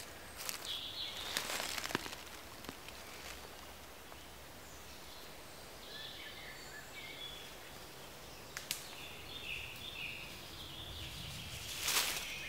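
Woodland ambience with small birds chirping in short scattered notes. Dry leaf litter rustles at the start, and footsteps crunch through dry fallen leaves near the end.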